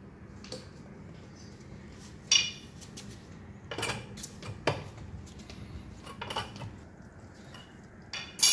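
Metal tools and parts clinking and clanking against each other: about five sharp metallic strikes a second or two apart, the loudest one near the end.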